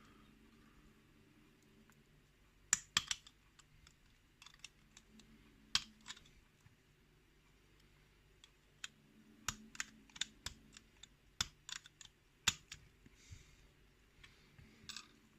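Small metal clicks and taps, irregular and in short clusters, from a pin-tumbler lock cylinder being taken apart with pliers and hand tools.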